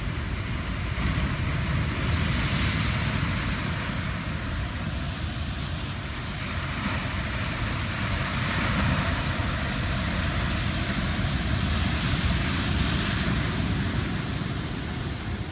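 Heavy ocean surf breaking and washing over a black lava-boulder shore: a continuous rush of white water with a deep rumble, swelling louder a few times as bigger waves break.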